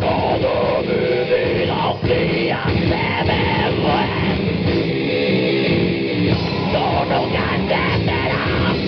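Loud heavy metal band playing: distorted electric guitars, bass and drums in a steady instrumental passage.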